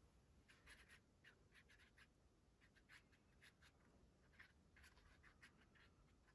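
Very faint, short, irregular swishes of a watercolour brush stroking paint onto wet watercolour paper.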